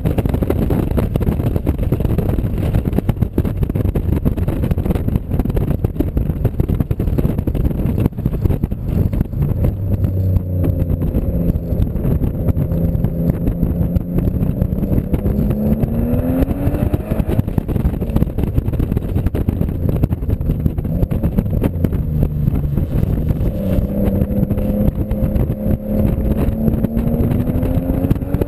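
A car's engine pulling under acceleration over a heavy rush of road noise; its pitch climbs steadily over several seconds, once around the middle and again near the end.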